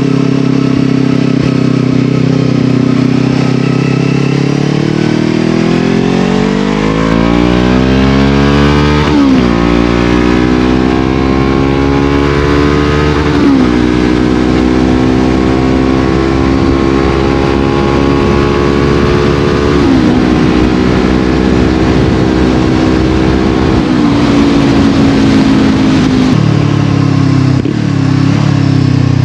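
Brixton Crossfire 500's parallel-twin engine through an FF by Fresco exhaust with its baffle fitted. The engine runs low and steady, then climbs in pitch under acceleration, dipping sharply about 9 and 13 seconds in as it shifts up through the gears. It then holds a fairly steady pitch with brief small dips, and drops lower near the end.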